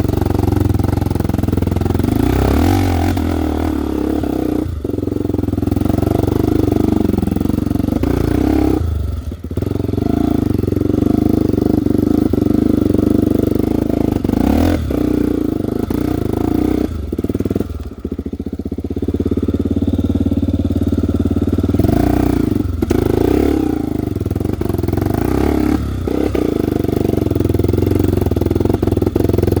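Honda XR250 Tornado trail bike's single-cylinder four-stroke engine running under load off-road. The throttle rises and falls, with brief cuts several times as the rider shifts or lets off.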